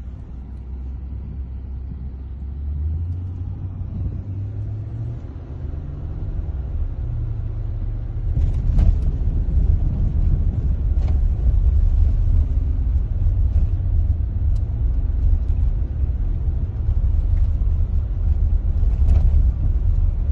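Car driving on an unpaved mountain road, heard from inside the cabin: a low, steady engine and tyre rumble that grows louder and rougher about eight seconds in, with a few faint knocks from the road.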